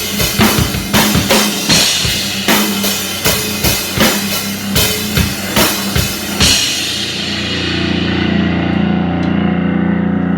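A live powerviolence/grindnoise band playing loud, noisy music: heavy drum hits about two or three a second over distorted guitar. About six and a half seconds in, the drums stop and a steady, distorted guitar drone keeps ringing.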